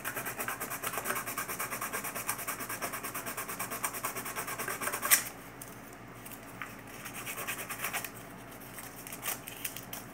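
Small metal battery contact being rubbed by hand with sandpaper, rapid back-and-forth scraping strokes, to clean off rust so it will conduct. A sharp click comes about five seconds in, after which the scraping drops to a few faint strokes.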